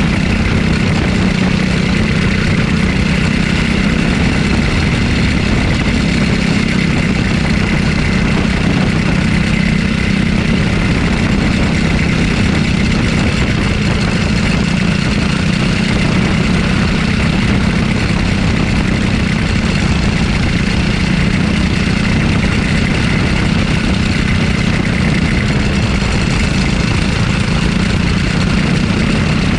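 A racing go-kart's small engine running close to the microphone as the kart laps the track, its note holding fairly steady throughout.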